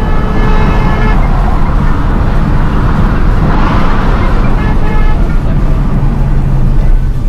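Engine and road noise heard from inside a Hyundai i20 driven at speed, a loud steady rumble. A car horn sounds briefly near the start and again about five seconds in.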